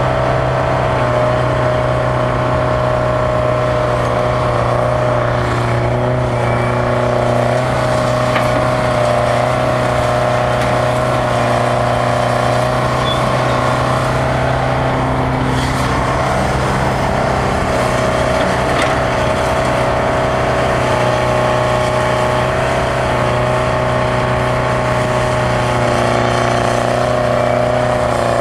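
The two-stroke Detroit Diesel 4-71 engine of a Bucyrus-Erie 20-H excavator running steadily under load as it digs sand and swings to load a dump truck, a deep drone with a high whine over it that wavers slightly in pitch.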